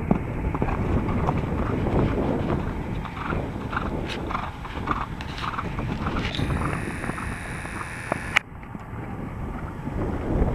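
Hoofbeats of a cantering horse on sand, muffled under strong wind buffeting the microphone. There is a single sharp click a little after eight seconds.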